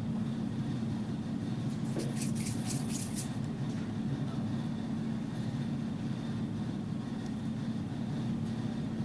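Steady low mechanical hum at an even level, with a brief run of faint crackling rustles about two to three seconds in.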